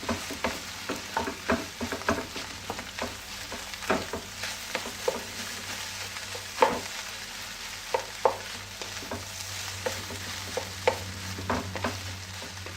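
Rice frying in a hot stainless steel pan over high heat, sizzling steadily while it is stirred, the utensil clicking and scraping against the pan at irregular moments.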